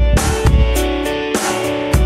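Instrumental background music: sustained chords over deep bass, with a drum hit about once a second.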